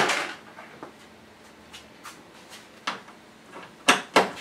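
A sharp clack at the start, a few light clicks, then two quick clacks about four seconds in: hand tools and small bolts being handled while a part is unbolted.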